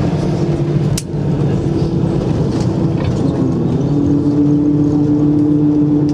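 Cabin noise of an Airbus A320-214 taxiing after landing, heard from a window seat: a steady engine drone with a low hum. A little over halfway through, the hum drops slightly in pitch and grows stronger. There is a single knock about a second in.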